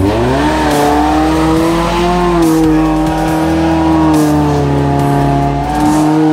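Suzuki Katana (Jimny SJ410) four-cylinder engine revving up sharply in the first half second and then held at high revs, the pitch dipping slightly now and then, as the 4x4 climbs a steep muddy bank under load.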